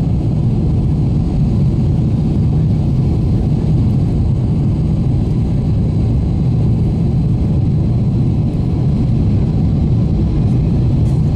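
Jet airliner cabin noise during the climb after takeoff: the engines and the rushing air heard from inside the cabin as a steady, deep rumble.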